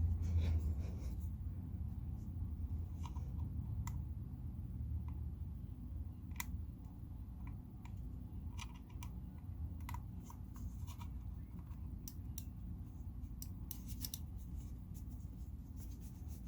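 Scattered small plastic clicks and taps from a wireless mouse being handled and tried, over a steady low hum.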